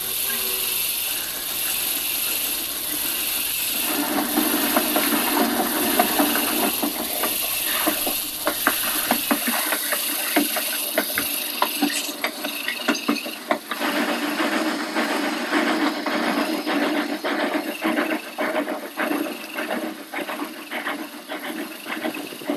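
HO-scale model 4-4-0 steam locomotive and its coach running on track: a steady mechanical running noise with a rattle of many irregular clicks from the wheels and mechanism, which gets louder about four seconds in.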